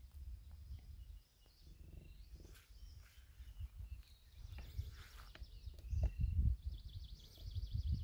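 Wind buffeting the microphone in uneven low rumbles, strongest about six seconds in, with small birds chirping and a fast trill near the end.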